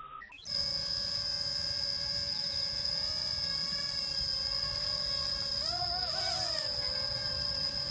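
Parrot Rolling Spider mini quadcopter in flight, its small electric motors and propellers giving a steady high whine. About six seconds in, the pitch wavers up and down briefly as the motors change speed, then settles.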